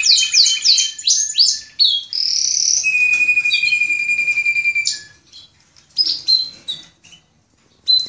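Spanish Timbrado canaries singing against one another. Fast runs of falling notes give way to a long held note from about three to five seconds in, then short broken phrases, and the singing briefly drops out near the end.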